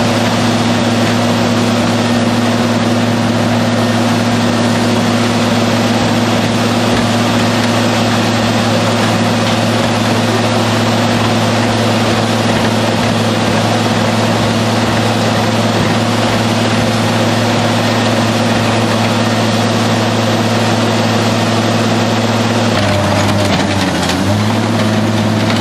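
Hammel mobile shredder's diesel engine running in a steady drone while the machine crunches and tears through a car body in its hopper. Near the end the engine note dips and recovers.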